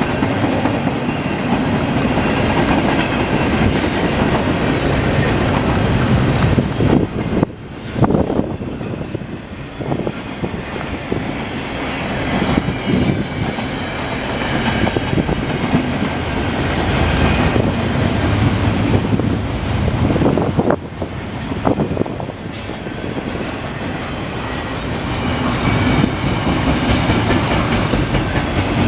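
Double-stack intermodal container well cars of a freight train rolling past on the rails: a continuous rumble and clatter of steel wheels over the track, dipping briefly in loudness twice.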